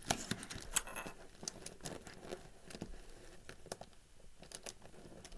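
Plastic speedcube pieces clicking and rattling irregularly while a corner piece is worked back into a partly reassembled cube, with the sharpest clicks at the start and about a second in.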